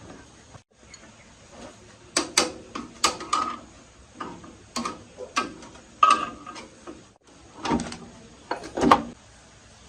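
Irregular knocks and clinks of metal parts being handled and tapped while an old rice milling machine is worked on, some strikes ringing briefly. The sound cuts out completely twice for an instant.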